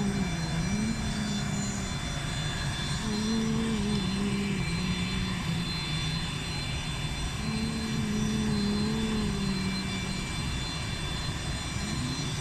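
Jet airliner engines running on an airport apron: a steady rumble with constant high-pitched whining tones. A lower wavering hum comes and goes every few seconds.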